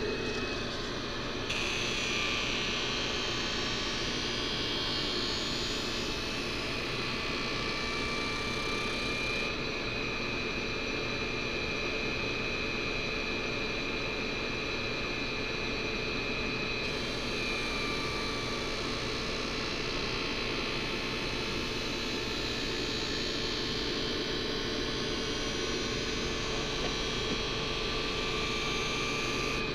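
CAG One skate-sharpening machine running with a steady motor hum while an ice skate blade is passed along its grinding wheel. The steel grinding against the wheel gives a rasping whine that swells and eases as the blade travels back and forth.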